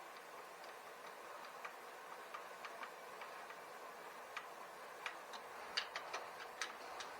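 Faint, irregular light clicks and taps of small parts being handled, sparse at first and bunched together in the second half, over a faint steady hiss.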